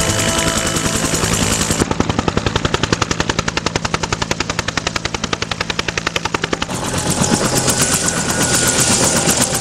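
UH-1 Huey helicopter's two-blade main rotor, a fast steady chop of about ten beats a second as it hovers, with the turbine's steady drone underneath.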